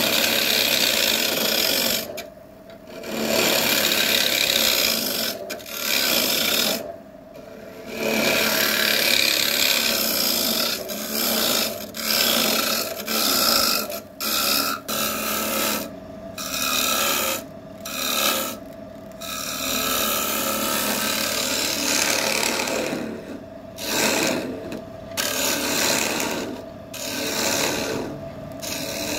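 Wood lathe running while a tool is held against the spinning wood: a rough scraping noise in repeated passes, broken by short pauses where the tool comes off, over a steady motor hum.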